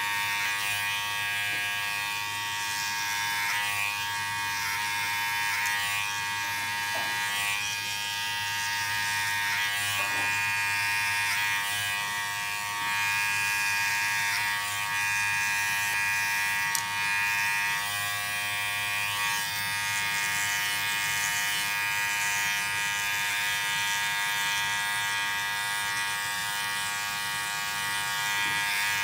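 Electric hair clippers running steadily with an even buzz.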